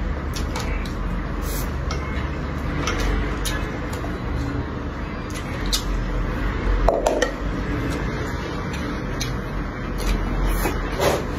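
Close-up eating sounds: chewing and mouth noises with frequent small sharp clicks and taps of chopsticks against the dishes and rice pot, a couple of louder ones about seven and eleven seconds in. A steady low rumble runs underneath.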